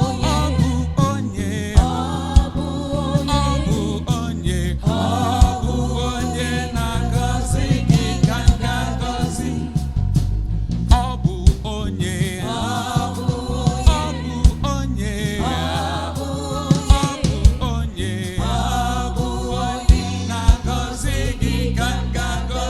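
Gospel music: sung phrases, several voices, over a band with a steady drum beat and bass.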